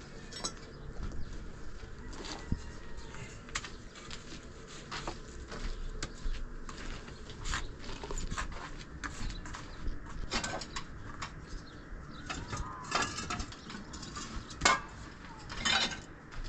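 Irregular clicks, knocks and scrapes of hand work with tools and materials, bunched into quick clusters about ten, thirteen and sixteen seconds in.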